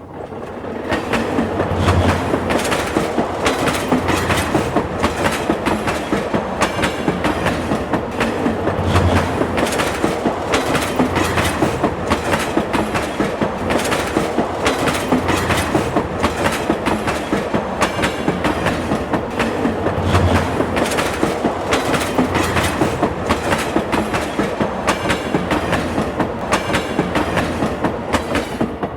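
Subway train running on the rails, its wheels clattering over the rail joints in a steady, even clickety-clack of about three beats a second; it fades away near the end.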